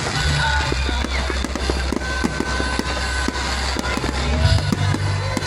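Aerial fireworks bursting in a rapid series of sharp pops and crackles, over music with deep sustained bass notes.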